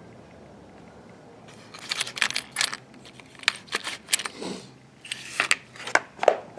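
A small plastic accessory case being opened and its small tools handled: irregular sharp clicks and rattles starting about a second and a half in.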